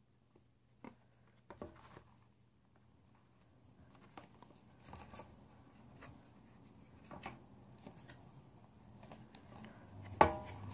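A small knife and fingers handling a folded cardboard VR viewer, prying at its plastic lens covers: scattered light clicks, taps and scrapes, with one sharper knock near the end.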